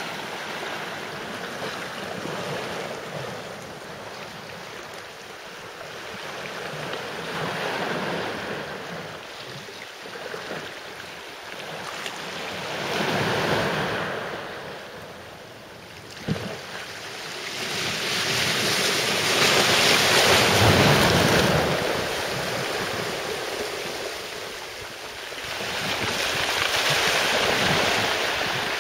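Sea waves washing in with wind buffeting the microphone, a rushing noise that swells and fades every several seconds. A single sharp click comes about sixteen seconds in.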